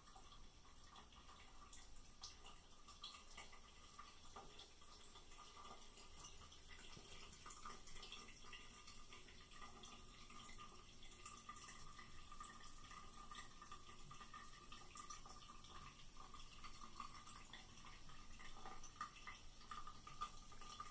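Faint trickle of a thin stream of water from a bathroom sink faucet, with many small irregular drips and splashes as a cat laps at the stream.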